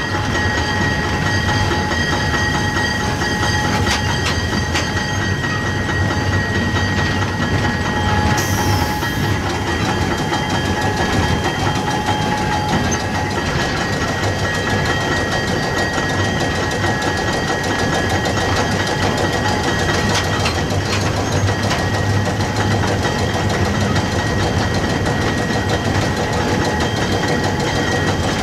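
Electric steeple cab locomotive No. 298 running along street track, heard from inside its cab: a steady running rumble with a steady whine over it. A short hiss about eight seconds in.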